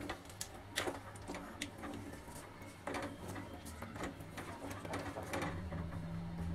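A spatula scraping and clicking against a steel kadai while thick gram-flour and onion curry is stirred, in short irregular strokes over a faint steady low hum.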